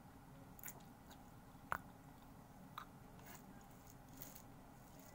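Faint close-up eating sounds: chewing with a few short, sharp mouth clicks, the loudest a little under two seconds in, over a steady low hum.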